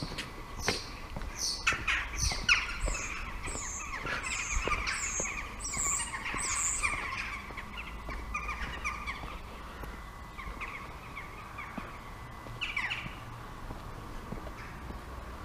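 Birds chirping and singing, busiest in the first half with a quick run of repeated high, falling notes, over light footsteps on paving.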